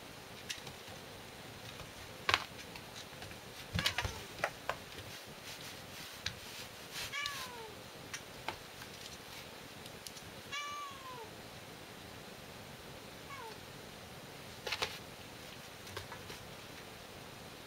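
A kitten meows three times, short calls that fall in pitch, mixed with sharp knocks and clicks from a spring-mounted toy mouse as it is batted about.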